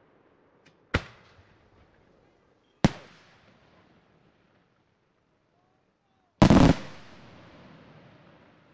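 Aerial firework shells bursting: two sharp bangs about two seconds apart, then a few seconds later a louder, longer bang that rolls off into a fading echo.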